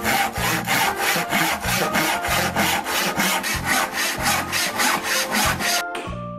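Hand saw cutting through a wooden log in quick, even back-and-forth strokes, about four or five a second, stopping near the end.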